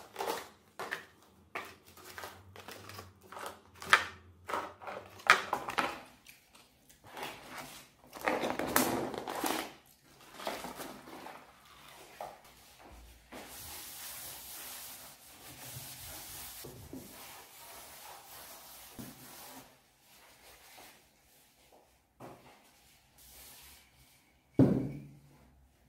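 Takeout paper packaging rustling and items clicking and knocking as they are handled and set down on a wooden desk, with a steady hiss for several seconds midway and one louder thump near the end.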